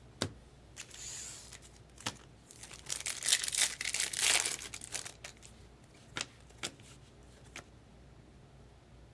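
A trading card pack wrapper being torn open and crinkled, loudest in a dense crackling stretch about three seconds in. A few sharp clicks of cards being handled come before and after it.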